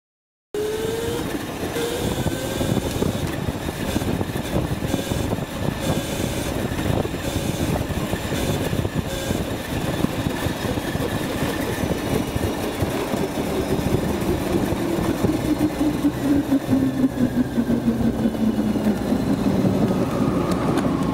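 Electric go-kart's Motenergy ME0708 motor whining under power, mixed with tyre and wind rumble; over the second half the whine falls steadily in pitch as the kart slows. Through the run there is a pulsing in the drive that the driver cannot explain.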